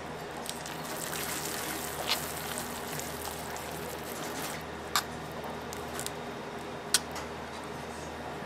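Spatula working a puddle of hot, sticky amber sugar syrup on a candy-cooling table: soft wet smearing and scraping over a steady hiss, with a few sharp clicks about two, five and seven seconds in.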